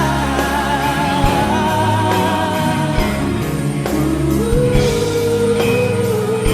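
A song playing: long held, wavering sung notes over a backing band with a steady beat.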